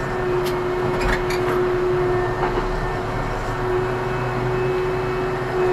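Ursus C-392 tractor's diesel engine running steadily under load while pulling a five-furrow plough, a constant drone with a few short clicks about a second in.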